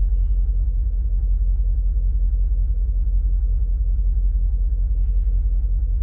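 Mercedes-Benz M278 5.5-litre twin-turbo V8 idling at about 650 rpm with a steady low rumble that pulses unevenly. It is a rough, misfiring idle: the scan tool flags misfires on cylinders one and four.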